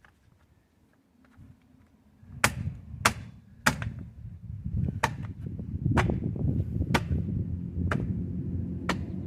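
A series of sharp knocks or taps, about one a second, starting some two seconds in, over a low rumble, as the wheel is put back on at the hub.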